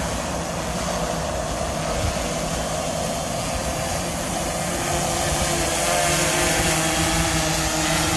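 Propellers of a large camera quadcopter drone with a Zenmuse camera, whirring in a steady hum as it hovers down to land with its legs lowered. The hum grows louder about five seconds in as it comes closer.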